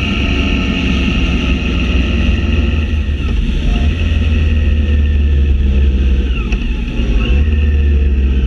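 A motorcycle riding at road speed, heard from the bike itself: steady engine sound with a heavy low rumble of wind and road noise. The engine note slowly drops as it slows.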